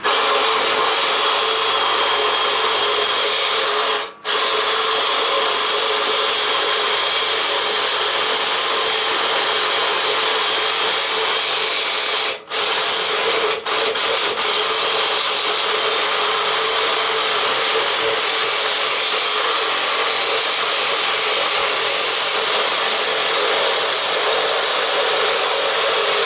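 Cordless reciprocating saw running steadily as it cuts through an air-conditioner A-frame coil of copper tubing and aluminum fins. It drops out briefly about four seconds in and a couple of times around twelve to fourteen seconds in.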